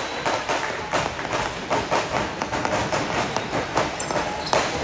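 Basketball play on an indoor court: the ball bouncing and players' running footsteps, a quick run of knocks and thuds over a steady background of court noise.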